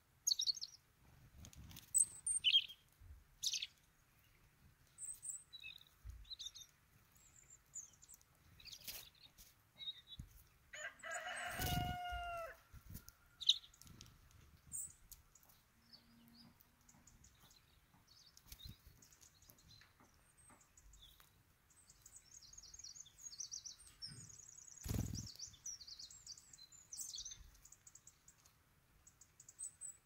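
Small birds chirping in scattered short high calls, with a run of rapid twittering a little past the twenty-second mark. About twelve seconds in a rooster crows once, the loudest call, and a dull thump comes about twenty-five seconds in.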